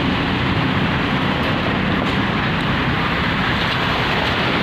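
Steady road traffic: vehicles running past with a continuous engine rumble and road noise, no horn sounding.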